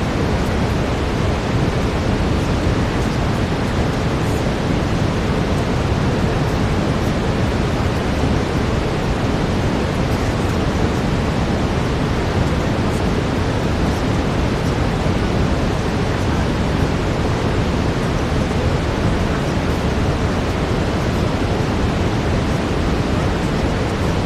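Steady, unbroken brown noise, a deep even rush heaviest in the bass, like distant surf. A faint steady tone is held beneath it.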